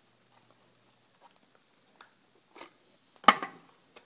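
OtterBox Defender case being taken off an iPhone 3G: a few faint plastic clicks and handling noises, then one sharp snap a little over three seconds in.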